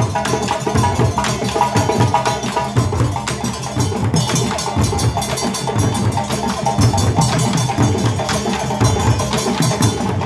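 Live West African drum ensemble playing a fast, dense rhythm: djembes played by hand, with a tall standing drum struck with a stick.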